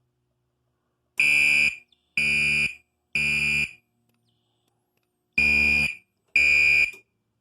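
Gentex SHG-24 horn strobe sounding the temporal code-3 evacuation pattern: three harsh horn blasts about a second apart, a pause, then the next cycle starting with two more blasts. The panel's drill mode sets it off as a manual evacuation.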